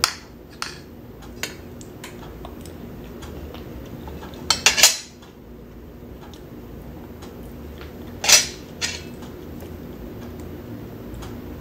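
Metal spoon and fork clinking and scraping on a ceramic plate while eating: a few scattered clinks, then louder clatters and scrapes about halfway and again about two-thirds through.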